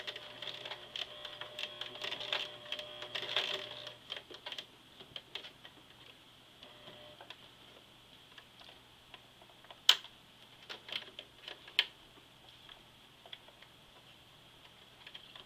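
Sewing machine stitching through the thick denim of a jeans fly: a run of rapid needle strokes with the motor humming for about four seconds, then it stops. After that come scattered single clicks and knocks as the needle is worked slowly over the bulky zipper underneath.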